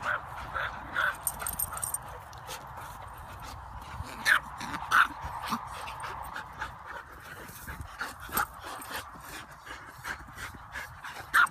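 Dogs play-wrestling, with short, sharp yips and whines scattered throughout; the loudest pair comes about four and five seconds in.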